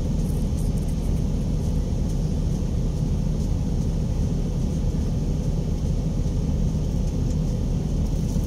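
Steady low rumble of a passenger bus heard from inside the cabin, with an engine hum running underneath.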